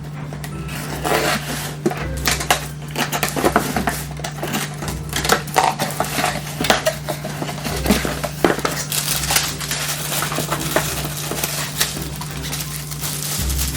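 Packaging being handled in an unboxing: irregular crinkling, rustling and small clinks and taps, over a steady low hum.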